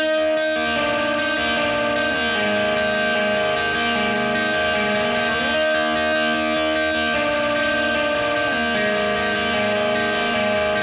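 Background music: sustained guitar chords with slow sliding changes between them, played through an effects unit.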